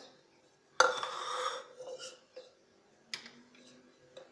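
A sharp knock about a second in, followed by a brief clattering rattle, as kitchen utensils are set down and handled on a stone countertop; then a few faint taps and clicks.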